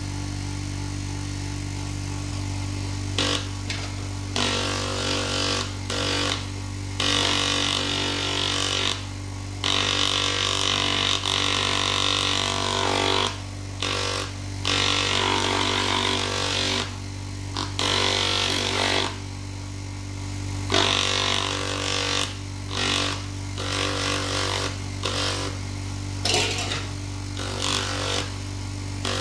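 Small electric motor running with a steady hum while a stone is pressed against its spinning abrasive polishing pad, giving a hissing, grinding scrape. The scrape starts about three seconds in and comes and goes as the stone is lifted and pressed on again.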